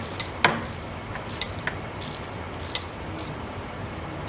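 Hand tools clicking and knocking against metal as bolts on a Tesla Model 3 drive unit are tightened to torque spec: a handful of sharp, separate clicks, the loudest about half a second in, over a steady low hum.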